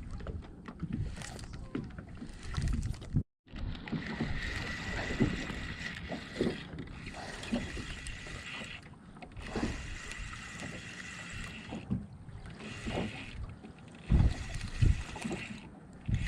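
Wind rumble and knocks on a small fishing boat or kayak on the water, with a brief dropout about three seconds in.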